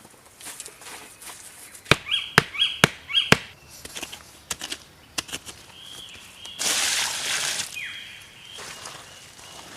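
Four sharp blows in quick succession, about two a second, followed by a few lighter knocks and, about seven seconds in, a brief burst of rough hissing noise.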